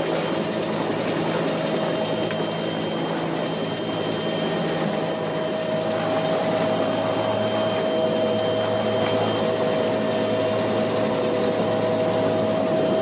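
Military rescue helicopter's turbine engines and rotor running steadily, heard inside the cabin: a loud, constant drone with a high whine, and a second, lower whine joining about midway.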